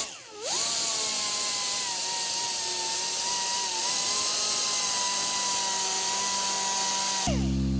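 Small handheld electric power tool spinning up, running steadily at high speed with a high-pitched whine for about seven seconds, then winding down near the end, used to clean up an old copper sealing washer. A steady low hum follows as it stops.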